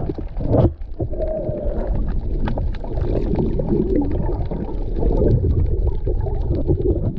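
Muffled underwater sound through an action camera's microphone: a steady low rumble of moving water with many small clicks and bubbling.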